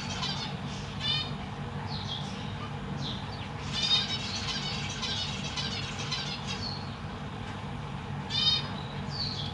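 Zebra finches calling: short nasal honking calls, loudest about four seconds in and again near eight and a half seconds, with quick high chirps and chatter between them.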